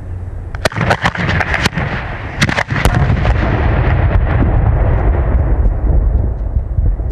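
Fireworks going off in a demonstration: a rapid string of sharp bangs and cracks over about two seconds, then a loud low-pitched rush with a few scattered faint crackles as it dies away.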